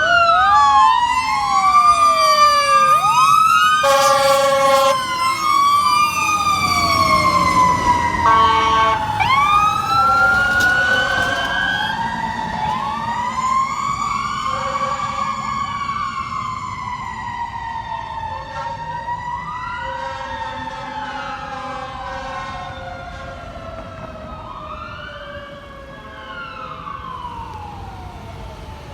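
Fire truck and ambulance sirens wailing together, several gliding tones overlapping, with two blasts of the 2007 Spartan Gladiator/Smeal fire truck's air horns about four and eight seconds in. A mechanical Q siren then winds down slowly, its pitch falling through the rest, as the whole sound fades away.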